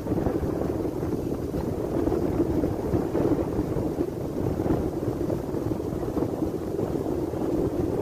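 Wind blowing across the microphone, a steady low rush with gusty flutter.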